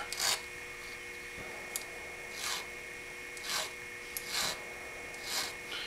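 Small hand file stroking across the end of a metal pin rod on a straight razor, taking it down to a flat, smooth surface just proud of the washer before the pin is peened. About five separate strokes roughly a second apart, with a couple of light clicks between them.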